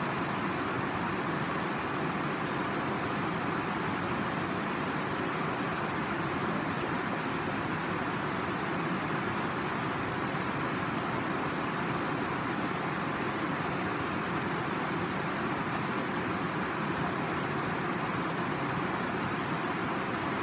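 The Tanew river running over low rock-step cascades: a steady, even rush of water.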